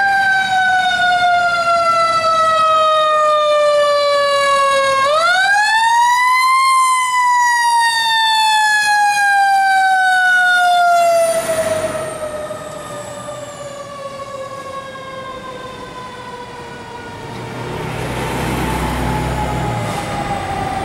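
Fire engine siren wailing in a single slow cycle: a long falling wind-down, a quick rise about five seconds in, then another slow fall that grows quieter as the truck passes. Near the end the truck's engine rumbles as it pulls away.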